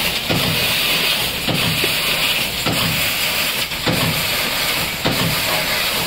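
Longxin LX-GL40 fiber laser tube cutting machine cutting a tube: a steady high hiss of assist gas from the cutting head, with a short click about every 1.2 seconds.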